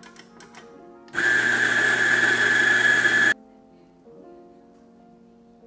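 Electric espresso grinder (Lelit William PL72) running for about two seconds as it grinds beans into the portafilter held in its fork. It starts and stops abruptly, giving a steady motor whine over grinding noise.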